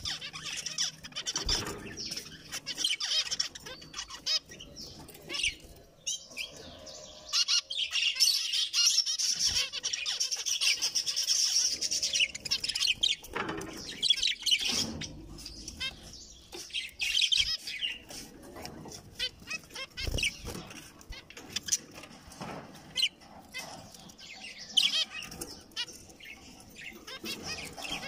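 Zebra finches calling and chattering in quick, high-pitched notes, busiest from about seven to thirteen seconds in, mixed with wing flutters and small clicks as the birds hop and fly about the cage.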